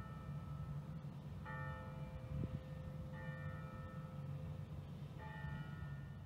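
A single church bell tolling, struck three times about two seconds apart, each stroke ringing on into the next, over a steady low rumble.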